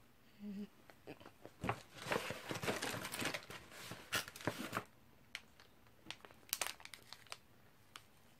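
Plastic packaging crinkling and rustling in a dense stretch of about three seconds, followed by a few scattered crinkles and light clicks.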